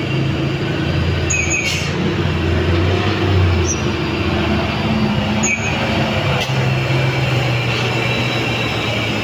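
Heavy vehicle's diesel engine running under load on a steep climb, a steady low hum whose pitch shifts partway through, with a few brief high squeaks and clicks.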